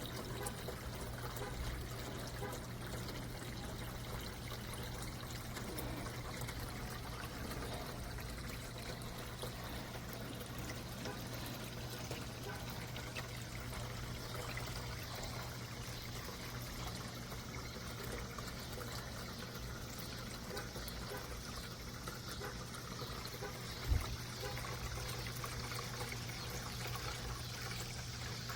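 Pump-fed cascading water fountain running, with water trickling and pouring steadily and a steady low hum. There is a single low thump near the end.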